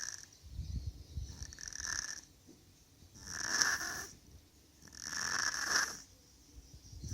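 Snoring in slow breaths: a low fluttering rattle about a second in, then long breathy hisses, the loudest in the middle and a second one a little later.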